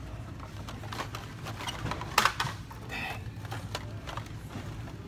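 Carded Hot Wheels cars in plastic blister packs clicking and clattering against each other and the store peg hooks as a hand flips through them, the loudest clatter about two seconds in. A steady low hum runs underneath.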